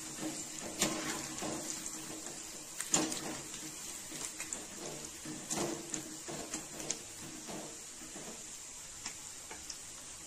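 Chana dal vada pieces deep-frying in hot oil in a kadai, a steady sizzle, while a perforated metal skimmer turns them, clinking and scraping against the pan several times, loudest about three seconds in. Near the end only the sizzle remains, with a couple of faint clicks.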